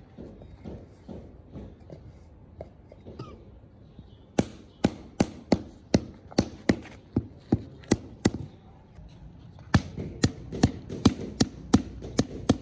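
Rubber mallet tapping a paving tile down into its sand bed. A run of knocks at about two a second starts about four seconds in, pauses briefly, then resumes faster.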